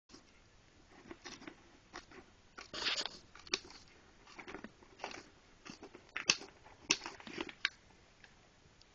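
Leather roper boots scuffing and grinding against rough, gritty ground: a run of irregular crunches and scrapes, the loudest about three seconds in and again around six to seven seconds in.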